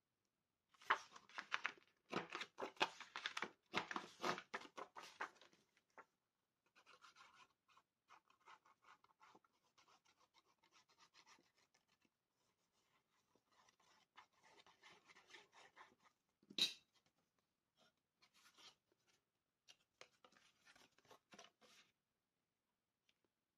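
Paper and cardstock handled and rubbed by hand: a run of scratchy rubbing strokes in the first few seconds, then quieter rustling with one sharp tap about two-thirds of the way through.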